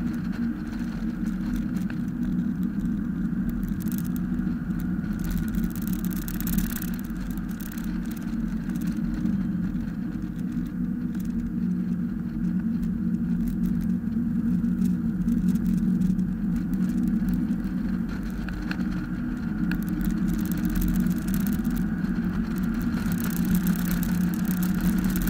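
Mazda Miata's four-cylinder engine running hard at track speed, its note fairly steady, heard from inside the open cockpit with wind rushing past the top-down car.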